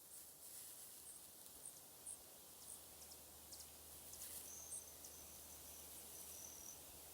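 Faint outdoor nature ambience: a soft hiss with scattered short, high-pitched chirps every half second to second, and twice a brief high steady buzz in the second half.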